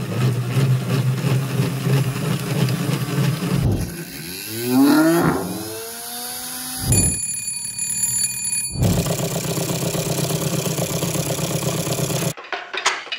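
A sequence of small homemade 3D-printed machines running: a hand-cranked generator whirring steadily, then a 3D-printed brushless motor spinning up with a rising whine and holding a steady high-pitched whine, then a solenoid engine running with an even, rapid rattle.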